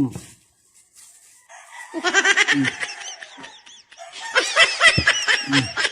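Chickens cackling in two loud bursts of rapid, repeated calls, one about two seconds in and another from about four seconds in.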